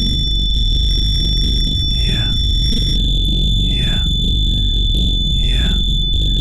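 Loud distorted electronic noise: a dense low rumble under a steady high-pitched whine. From about two seconds in, a falling swoop repeats roughly every second and a half.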